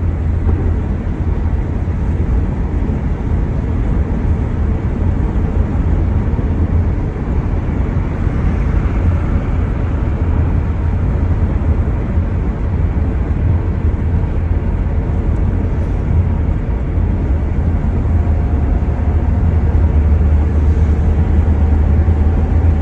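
Steady low rumble of a vehicle in motion, with a faint whine slowly rising in pitch near the end.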